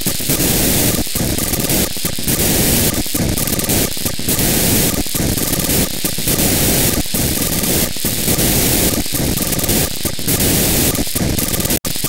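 Unidentified digital data signal on 440.930 MHz demodulated in narrowband FM: a loud, harsh, static-like hiss broken by short gaps about once a second, with a faint repeating tone in it. It cuts out briefly near the end.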